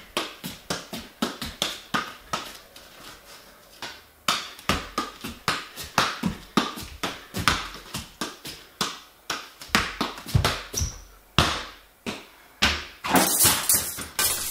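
Football being juggled with bare feet and knees: a run of soft thuds, about two to three touches a second, irregular in strength. A louder, noisier burst comes about a second before the end.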